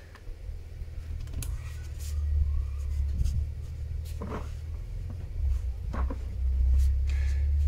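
A wrench working at tightly torqued bolts: a few sharp metallic clicks and knocks over a steady low rumble.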